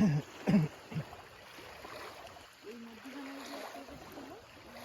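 Short loud voices in the first second, then fainter voices over a steady rushing background hiss.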